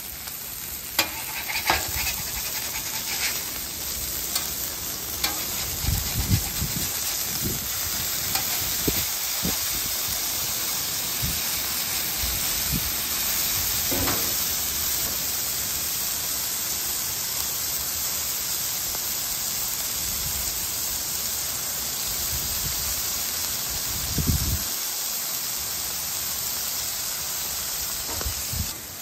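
Beef smash-burger patties sizzling steadily on the hot steel of a Blackstone flat-top griddle, with scattered scrapes and taps of a metal spatula as the patties are flipped.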